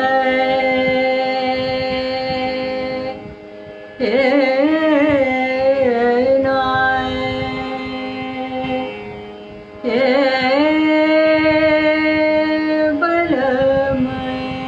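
A woman singing the wordless opening of a thumri in Raag Khamaj, Banaras gharana style: three long phrases, each sliding up into a held note with wavering ornamental turns, over a steady drone.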